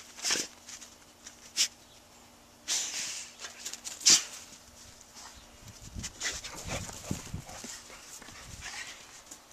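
Pit bull snuffling and nosing in snow at close range: a few short, sharp bursts in the first half, the loudest about four seconds in, then softer rustling with some dull low thumps.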